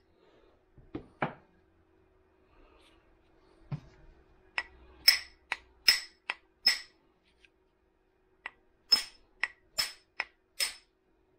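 Hammer being seated on its new wooden handle by pounding on the bottom of the handle: sharp metallic blows, each ringing briefly. Two blows about a second in, then two quick runs of blows starting about four and a half and about eight and a half seconds in.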